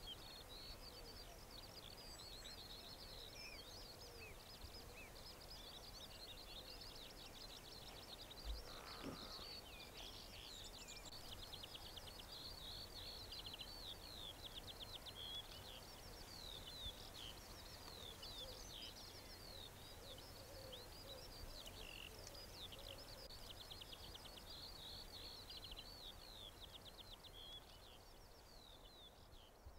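Faint chorus of many small birds singing at once, a steady stream of high chirps and quick trills. A single low thump comes about eight seconds in.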